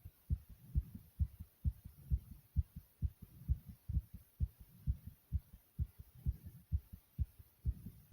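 Human heart beating fast, about two beats a second, each beat a pair of low thumps (lub-dub).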